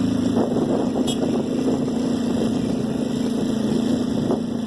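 Honda Tornado 250's single-cylinder four-stroke engine running steadily at a constant pitch under load, carrying rider and passenger.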